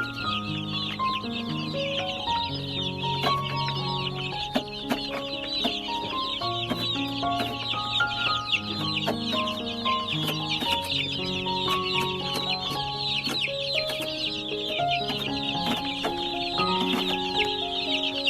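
A large flock of baby chicks peeping continuously, many high, short chirps overlapping into a dense chorus. Background music with held notes plays beneath.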